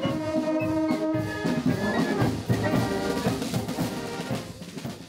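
Marching brass band playing, with tubas, horns and trumpets holding long chords that grow quieter toward the end.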